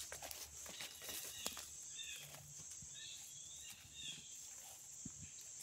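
Woodland ambience: a steady high insect drone, with footsteps rustling through leaf litter and undergrowth in the first second or so and a few short bird chirps about halfway through.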